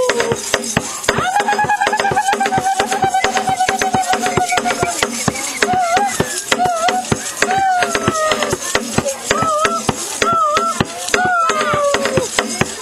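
Girls singing a traditional song: one long wavering note held for several seconds, then short phrases that slide downward at their ends. Under the voices runs a dense, fast clatter of sharp percussive clicks, rattles or claps keeping the dance rhythm.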